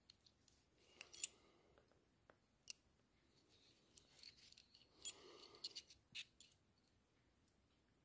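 Faint small metallic clicks and a soft rustle as a hand-forged iron belt buckle is turned over in the hand. The clicks come a few at a time, the sharpest about a second in and about five seconds in.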